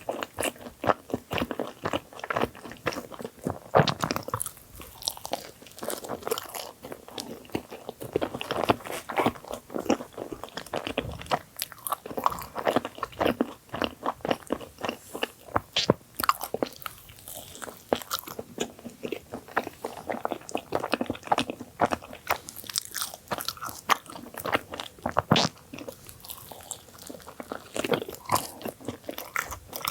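Close-miked mouth sounds of biting and chewing a thick cream-filled sandwich bagel: irregular soft crunches, wet chewing and crackles, with a few sharper, louder bites.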